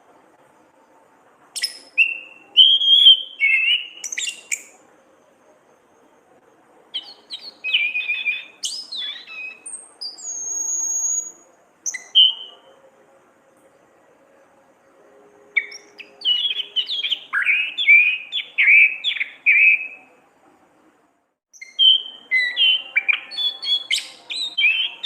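Orange-headed thrush (Anis kembang) singing: several phrases of quick, varied whistled and chattering notes, with pauses of a second or more between them and one held high note near the middle.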